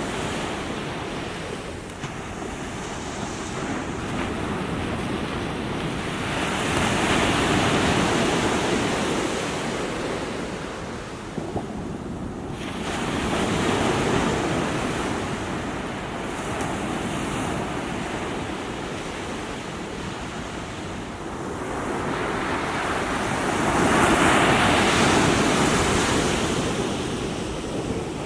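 Small waves breaking and washing on the shore in a steady wash of surf, swelling up loudly three times, about a quarter of the way in, near the middle and near the end.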